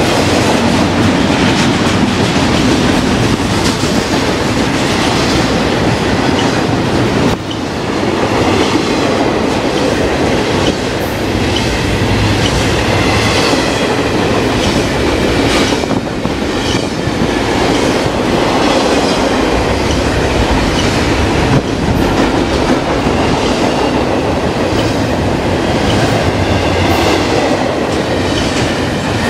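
Double-stack intermodal freight train passing at close range: a steady rumble and the clatter of well-car wheels over the rails, with a faint high squeal of wheels at times in the middle.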